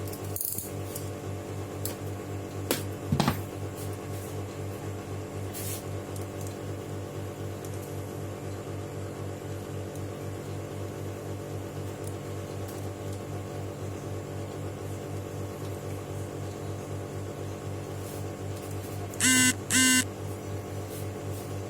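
Steady electrical hum, with a couple of sharp clicks about three seconds in and two short electronic beeps near the end.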